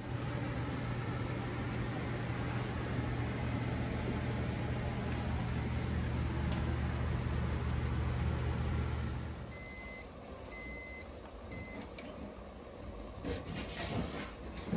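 Propane camp-stove burner under a pot of boiling maple sap: a steady rushing hiss with a low hum. The noise drops away about two thirds through, and three short electronic beeps follow from the digital probe thermometer, then a few light clicks.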